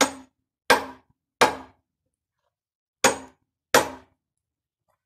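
Five hand-hammer blows on a chisel set against the cast-iron end cover of a large old electric motor: three in quick succession, a pause, then two more, each a sharp metallic strike with a brief ring. The blows are cracking the cover to get at the copper windings.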